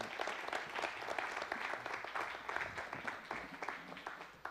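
Congregation clapping in applause, the clapping thinning out near the end.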